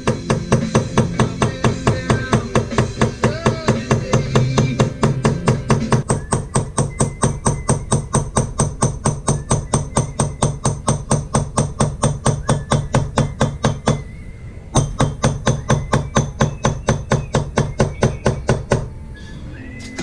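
Small hammer rapidly tapping a hand engraving chisel into a metal buckle, about four light blows a second in an even rhythm. The tapping pauses briefly a little after two-thirds of the way through and stops shortly before the end.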